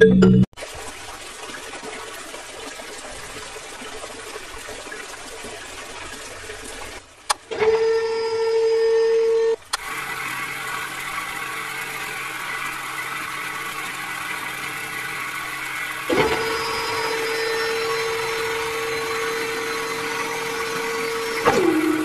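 Water running from a plastic hose into a muddy hole beside a toy-scale borewell drilling rig. A small DC motor whines at a steady pitch, briefly once and again for about five seconds later on, its pitch sliding down as it slows near the end.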